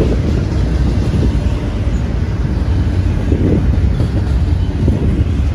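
BNSF double-stack intermodal train rolling past, its well cars' steel wheels on the rails making a loud, steady rumble.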